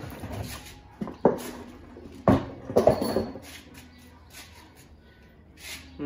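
A few sharp knocks and clunks of washing-machine parts being handled, about a second in, again near two seconds in and around three seconds in, then only faint handling noise.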